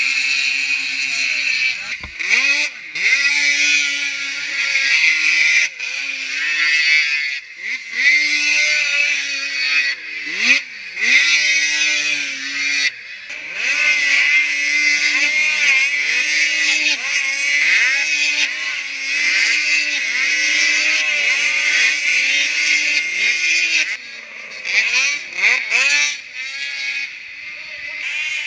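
Modified racing snowmobiles' two-stroke engines revving hard, their pitch climbing and falling again and again as the sleds accelerate, let off and land. Several sleds are heard at once, and the sound breaks off abruptly a few times.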